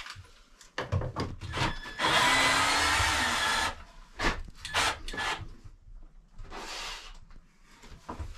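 Cordless drill running in two goes into the wooden cabinet frame: a loud run of about two seconds, then a shorter, weaker one near the end. Sharp knocks of wood being handled come in between.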